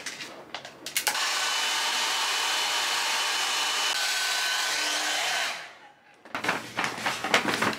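A small electric appliance's motor and fan, switched on about a second in, running steadily with a rushing whoosh of air and a faint whine for about four and a half seconds, then winding down. A few clicks come before it, and handling clatter follows.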